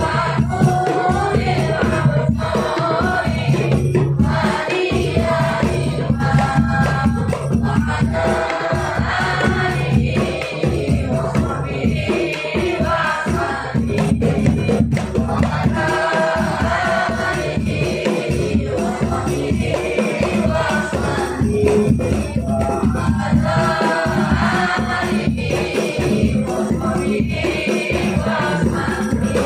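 Group of children singing salawat together, backed by steadily beaten frame drums and jingling percussion.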